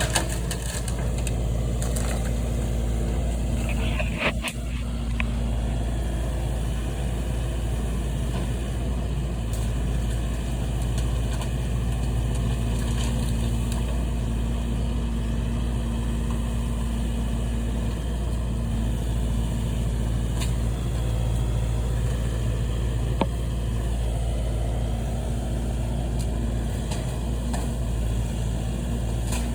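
Engine of a heavy demolition machine running steadily, with a few short sharp knocks about four seconds in and again near the end.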